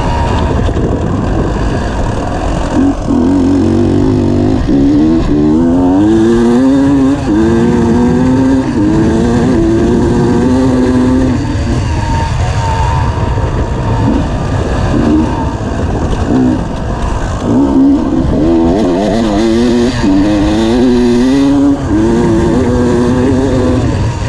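Off-road motorcycle engine at hard throttle, its pitch climbing and dropping back in steps as it shifts up through the gears. It does this twice, with a spell of lighter throttle in the middle. Heavy wind rumble on the onboard microphone runs under it.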